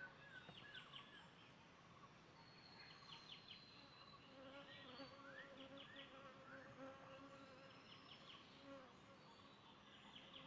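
Faint birdsong: several birds chirping, trilling and giving short sliding whistles, over a steady wavering insect buzz.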